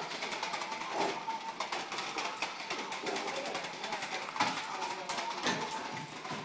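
A small plastic toy ball being pushed and knocked around on a tile floor by a dog, giving sharp knocks and scattered clicks, with a faint warbling tone that comes and goes. The sharpest knocks fall about four and a half to five and a half seconds in.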